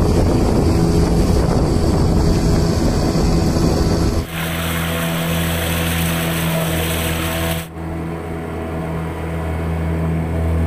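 Outboard motor of a small open fishing boat running steadily under way, with water rushing and splashing along the hull. The water noise jumps up sharply about four seconds in and drops away suddenly near eight seconds, while the engine hum carries on.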